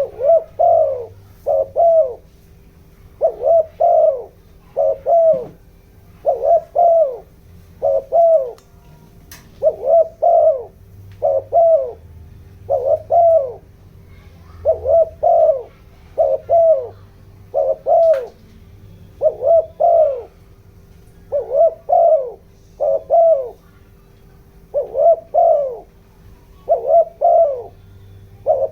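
Spotted dove cooing over and over, short phrases of two or three coos about every one and a half to two seconds. It is the fast 'thúc gù' call used as a lure to excite wild and decoy doves.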